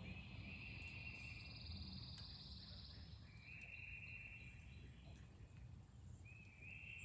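Three high trills, each lasting about two seconds and made of rapid pulses, from a small wild animal calling outdoors, over a faint steady low rumble.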